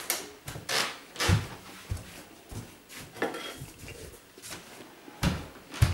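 Irregular knocks, clicks and rustles of household objects being handled, about eight separate sounds with a sharper knock near the end.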